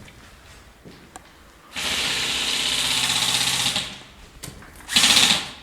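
Airsoft electric gun firing on full auto: a long burst of about two seconds, then a short, louder burst about a second later.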